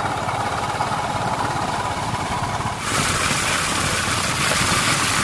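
Royal Enfield Bullet's single-cylinder engine running as the motorcycle is ridden along. A louder rushing hiss of wind and road noise joins about three seconds in.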